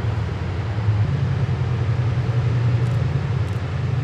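A heavy engine running steadily with a low drone, rising a little in pitch about a second in.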